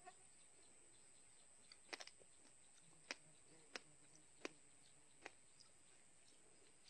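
Faint, sharp clicks and snaps at irregular intervals, about six in all, with a close pair about two seconds in, as fingers crack and peel a small fruit. The rest is near silence.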